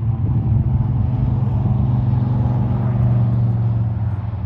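A distant engine droning steadily with a low hum, swelling louder and then easing slightly near the end as it passes.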